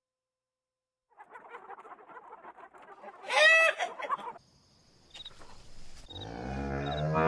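Farm animal calls. A rustling background carries one short, loud, high call about three seconds in. Near the end comes a low, drawn-out call that grows louder.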